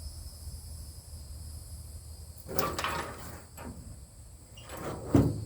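Steady high-pitched insect chirring, with two short handling sounds at the grill, one about two and a half seconds in and a louder one near the end.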